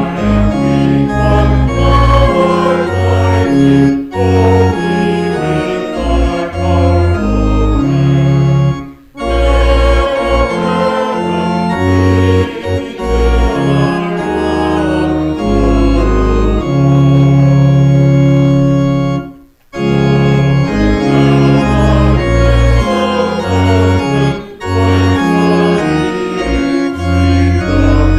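Church organ playing a hymn in sustained chords, its lines separated by brief breaks about 9 and 19 seconds in.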